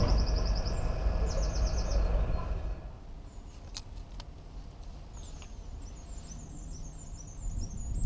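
A Bakerloo line tube train rumbling away from the platform, its noise falling off sharply about three seconds in. Songbirds trill over it and keep chirping in the quieter air afterwards, with a few faint clicks.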